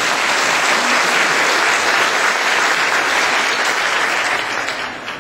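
Congregation applauding, dying away near the end.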